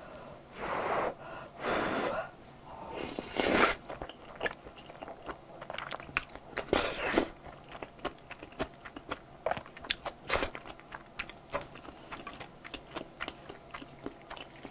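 Close-up eating sounds of a person taking in and chewing mouthfuls of ribbon pasta in a thick truffle cream sauce: a few longer slurping draws in the first few seconds and again around seven seconds, then many short wet mouth clicks as she chews.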